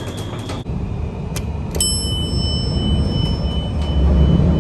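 Elevator chime struck once about two seconds in, ringing out with a bell-like tone for about three seconds, over a low rumble.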